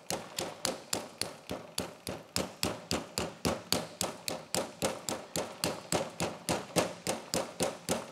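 A red-handled mallet tapping the plastic sealing cap strip down into the filler holes of a freshly filled Yuasa YTX9-BS sealed AGM battery. The taps are quick and even, about four a second.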